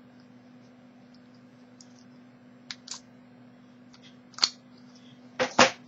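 Scattered small metallic clicks from a Master Lock M175 combination padlock and a homemade opening tool being handled, with a louder cluster of clacks near the end.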